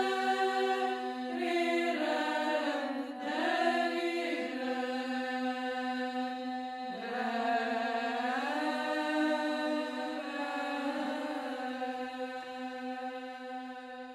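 Orthodox church chant: voices sing a slow, gliding melody over a steady held drone note, fading out near the end.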